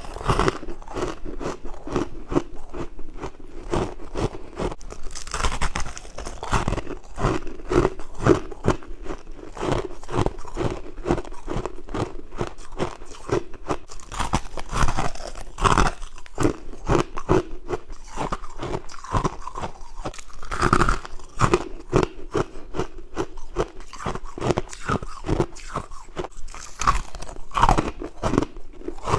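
A person biting and chewing mouthfuls of white frost at close range: a dense, irregular run of crunches with no break.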